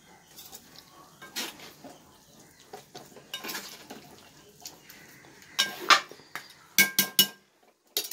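Metal ladle scraping and clinking against a large aluminium cooking pot and a steel plate, with scattered light knocks and then a quick run of three sharp metallic clinks that ring briefly near the end.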